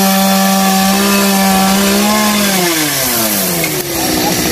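Two-stroke chainsaw running at full throttle as it cuts through a tree branch, one steady high engine note; about two and a half seconds in the throttle is released and the engine winds down to a lower idle.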